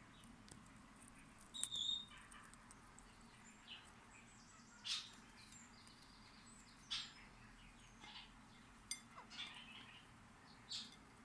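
Small pet parakeets (kakariki and budgies) giving short chirps and calls, one every second or two, the loudest about two seconds in.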